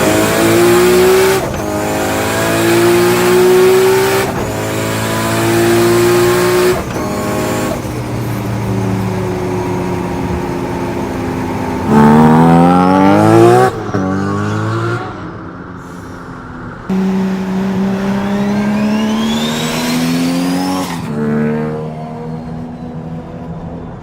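Nissan R32 Skyline GT-R's RB26 straight-six, tuned to about 900 hp, accelerating hard through several gear changes. The pitch climbs and drops back at each shift, with a short steep rev about halfway through and a high whine rising with the revs.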